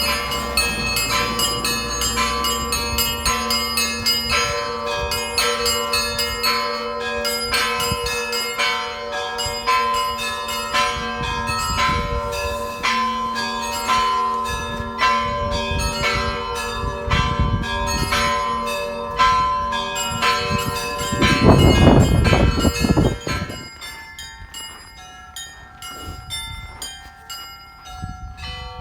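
Church bells being rung: many bells of different pitches struck in quick repeated strokes over the long hum of the larger bells. About three quarters of the way in a loud low rumble covers the bells for about two seconds, and after it the ringing goes on quieter and sparser.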